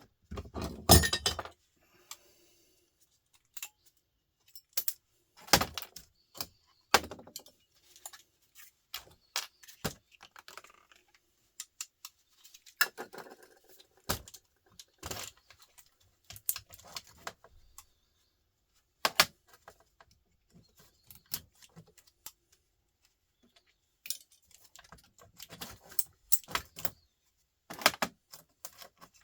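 Irregular clicks, clinks and light knocks of small plastic and metal parts being handled as a battery pack is pulled apart by hand, with a quiet spell in the middle and a busier run of clicks near the end.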